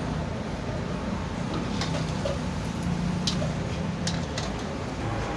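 Spring rolls deep-frying in hot oil in a wok: a steady sizzle, with a few light clicks.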